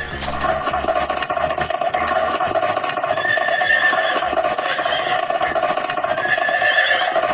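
A horse neighing and whinnying over a steady, rough background sound.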